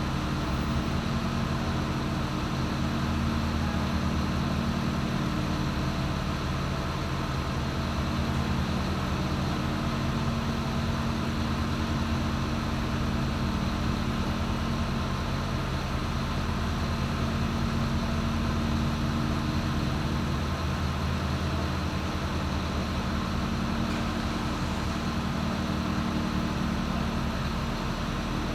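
Heavy diesel bus engine idling steadily, a low even hum over a constant background wash of station noise.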